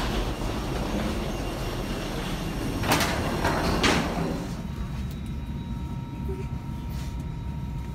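Steady mechanical rumble of airport ground noise in a jet bridge, with two short loud rushes of noise about three seconds in. Then it turns into the quieter, steady hum of an Airbus A320's cabin, with a faint steady tone running through it.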